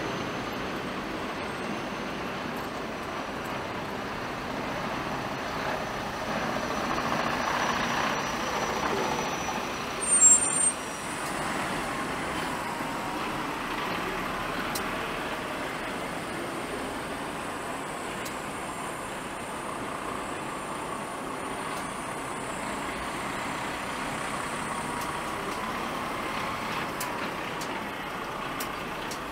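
Heavy vehicles running steadily, with a short loud burst about ten seconds in.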